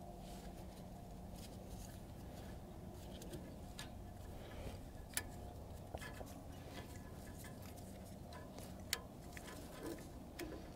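Scattered small clicks and taps as a generator carburetor and its gaskets are handled and fitted into place by gloved hands, over a low steady hum.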